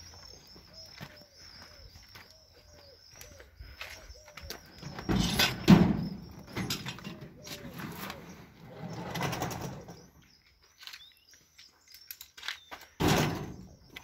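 A bird calling over and over, with a few loud thuds and rustles about five seconds in, around nine seconds in, and near the end.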